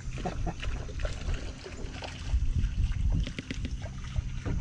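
Lake water lapping and sloshing against a fishing boat's hull, with scattered small knocks and bumps.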